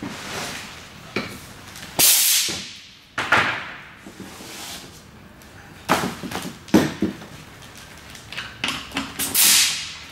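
Handling noises: an air hose being uncoiled and dragged over plastic sheeting, heard as several separate swishes, rustles and knocks, as its coupling is fitted to a pressure regulator.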